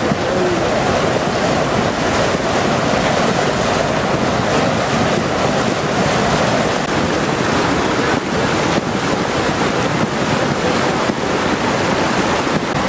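Flash-flood water rushing in a loud, steady torrent.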